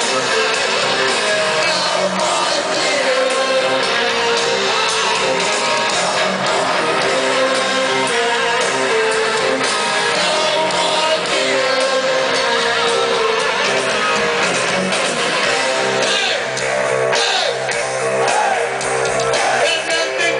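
Live heavy rock band playing loud over a concert PA: distorted electric guitar, drums and a male voice singing, heard from in the crowd.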